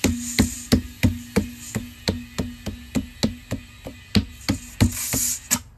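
Repeated hammer blows on a wooden block, driving a tire bead down over the wheel rim, about three strikes a second with a low hum underneath.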